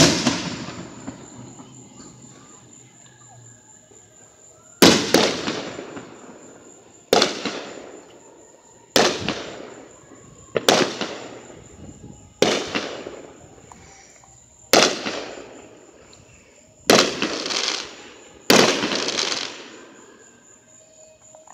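Aerial fireworks bursting in the sky: nine sharp booms roughly two seconds apart, each fading away with an echoing tail. The last two bursts trail on for a second or more.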